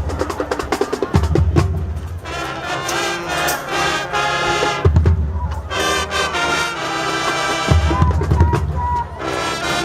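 High school marching band playing: the drumline's rapid snare strokes and heavy bass-drum hits lead for about two seconds, then the brass section comes in with sustained chords of trumpets and trombones, with bass-drum hits punctuating them.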